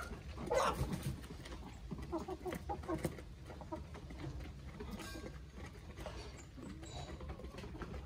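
A feeding flock of chickens, hens and roosters, clucking. There is a louder call about half a second in, a run of short clucks around two to three seconds in, and fainter clucks later.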